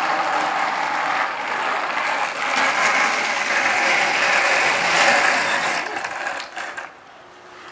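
Skateboard wheels rolling over rough asphalt: a steady gritty, rattling rumble that stops abruptly about seven seconds in.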